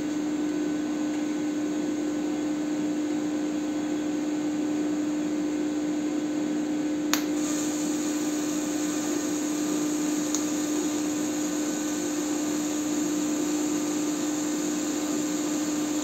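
TIG welding at 80 amps with an inverter welder: a steady hum with a constant tone and a hiss, the inverter probably louder than the arc itself. It is an autogenous butt weld on a steel tube, without filler wire. A single sharp click comes about seven seconds in.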